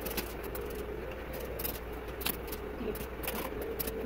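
Short, sharp spritzes and rustles, repeated at irregular intervals, as curly wig hair is dampened with a hand-pump water spray bottle and brushed through, over a steady low background hum.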